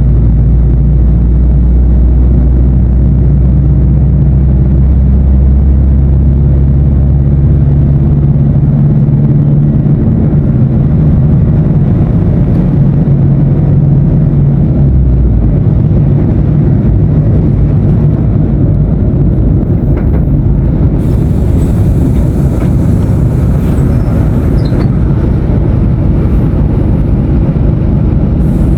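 Mercedes-Benz 1519 BlueTec 5 bus diesel engine running, its note shifting about a third of the way in and again about halfway. A hiss joins in about two-thirds of the way through and again near the end.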